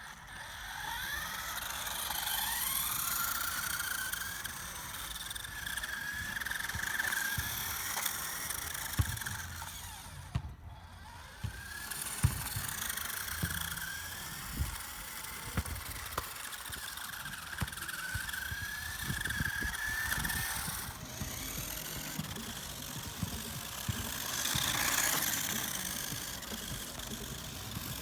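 Micro RC cars' small electric motors and gears whining as they drive, the pitch rising and falling over and over with throttle, with scattered light clicks and knocks.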